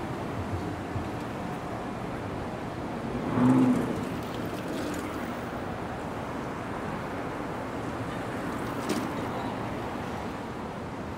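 Steady city street traffic noise, with one brief, louder pitched sound about three and a half seconds in.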